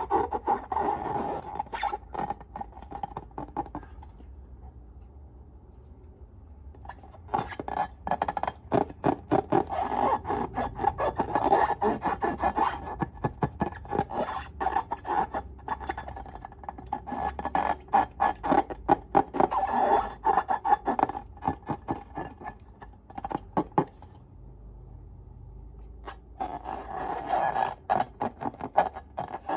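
Slime being squeezed and worked by hand, giving rapid crackling and squelching pops from trapped air, with two short quiet pauses.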